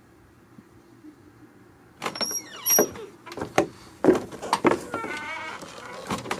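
Metal hand tools clinking and clattering against each other, starting about two seconds in as a run of sharp irregular knocks with brief metallic rings.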